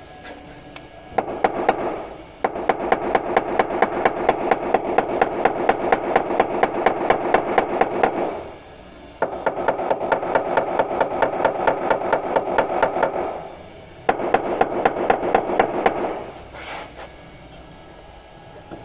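Hammer rapidly tapping car body sheet metal in panel beating, four runs of quick, evenly spaced strikes with short pauses between them.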